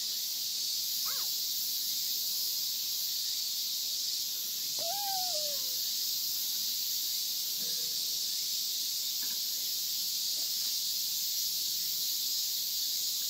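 Steady high-pitched hiss of an insect chorus, with a child's short falling vocal squeal about five seconds in.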